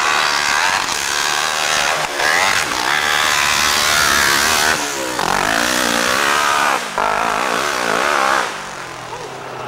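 Pro hillclimb racing motorcycles climbing under hard throttle, their engines revving high with the pitch rising and falling as the rear wheels dig and bounce. The sound cuts sharply from one bike to the next about 2, 5 and 7 seconds in, and is quieter near the end.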